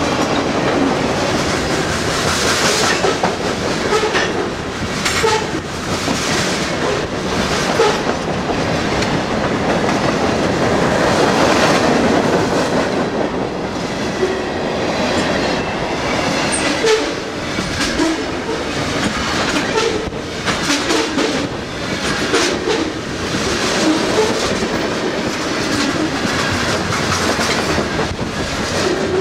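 Cars of a passing BNSF manifest freight train (boxcars, covered hoppers and tank cars) rolling by close at hand: a steady, loud rumble and rattle, with the wheels clacking over the rail joints.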